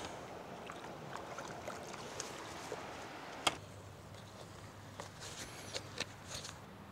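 Faint rushing of a small mountain stream with a few light handling knocks. About halfway through, a sharp click and the water sound drops away, leaving a faint low hum and small clicks and crackles as a plastic bottle is handled.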